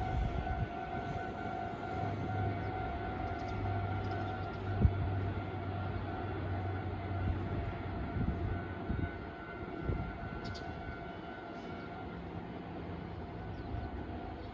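Japanese level-crossing warning bell ringing in a steady, repeating electronic clang. A train rumbles low underneath and dies away about nine seconds in.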